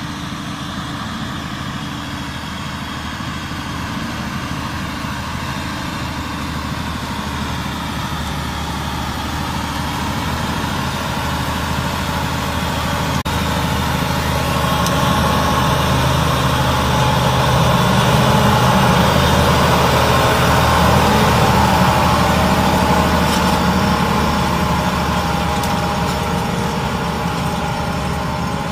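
Fendt 942 Vario tractor's 9.0-litre diesel engine running hard under load while the tracked tractor pulls a cultivator through hard soil. The engine note wavers as it works. It grows louder as the tractor comes closer, loudest about two-thirds of the way in, then eases a little.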